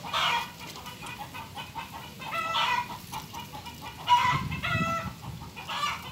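Chickens clucking, a series of short pitched calls, the loudest about four seconds in.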